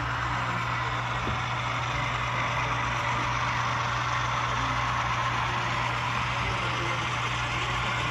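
Steady diesel engine sound from an HO-scale model locomotive's onboard sound system, running evenly with a low hum under a constant hiss.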